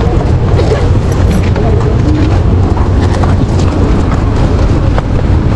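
Motorcycle engine running with a steady low rumble, along with short clicks and rustles from a bag being handled close by.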